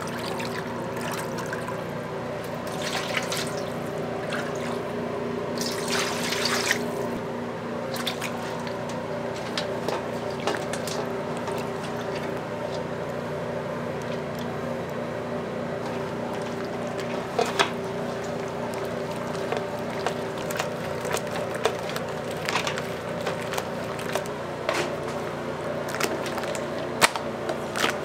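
Thin batter being ladled and poured back into a large steel bowl, splashing and dripping, then the wet, sloshing sounds of a raw chicken being worked by hand through flour and batter. Under it runs a steady mechanical hum of kitchen equipment, with scattered sharp clicks and knocks.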